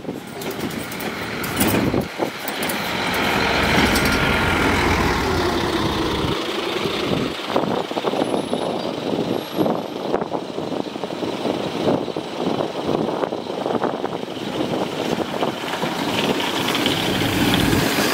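City bus engines pass close by. For the first few seconds a Solaris Urbino 18 articulated bus pulls away, with a deep engine note and a gliding whine. Near the end a Mercedes-Benz O530 Citaro approaches and passes.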